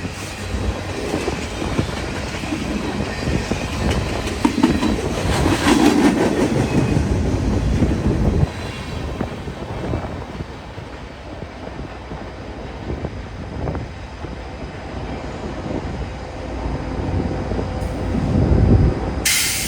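Freight cars of a CN freight train rolling past, steel wheels clacking over the rail joints, louder for a few seconds about five seconds in.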